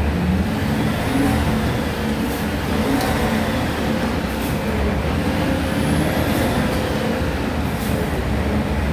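Natural-gas (CNG) city bus engine of a Modasa Titán Urbano on a Volksbus 17-230 OD GNV chassis running under way, a steady drone whose pitch rises and falls as it changes speed.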